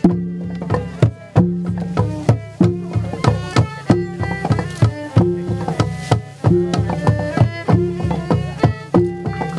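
Traditional music led by pitched hand drums playing a repeating rhythm: a deep stroke about every second and a quarter, with lighter, quicker strokes between, some of them bending upward in pitch.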